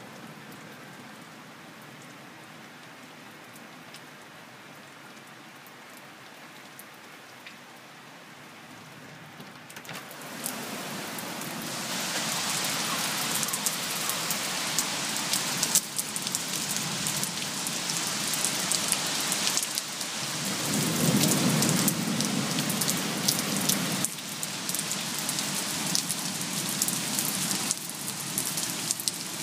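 Heavy rain, dull and muffled as if heard through a closed window for about the first ten seconds, then much louder and crisper, with a dense patter of drops. A low rumble of thunder comes about two-thirds of the way through.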